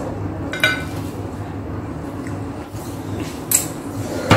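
A few short clicks and clinks of plates, glass and food being handled at a table, the sharpest near the end, over a steady low hum.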